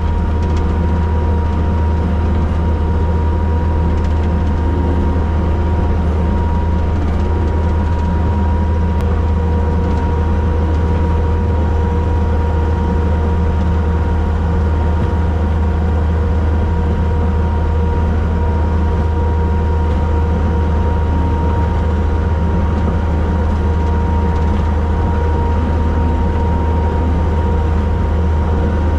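Takeuchi TL250 compact track loader's diesel engine and brush cutter running steadily under load while mowing wet grass, heard from inside the cab. A deep engine hum with a steady high whine over it.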